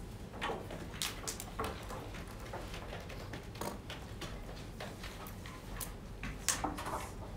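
Scattered light clicks, taps and rustles of small objects being handled, among them a plastic water bottle being drunk from and capped; the sharpest click comes about six and a half seconds in.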